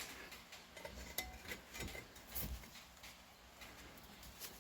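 Scattered faint metallic clinks and taps of metal parts and tools being handled.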